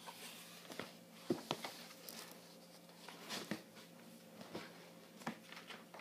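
Light knocks and rustles from a book being handled and set down, irregular, with the sharpest knocks about a second and a half in, over a faint steady hum.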